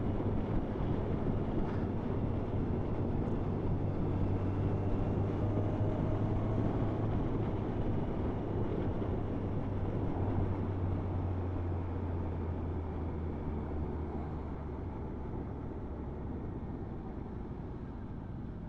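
Motorcycle engine idling steadily, a low even hum with no revving, slowly fading toward the end.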